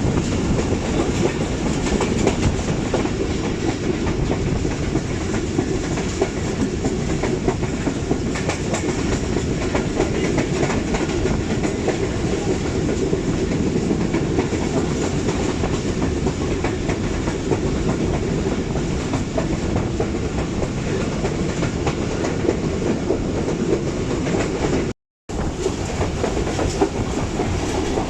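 Passenger train running along the line, heard from on board: a steady rumble of wheels on rail with clickety-clack, broken by a split-second gap near the end.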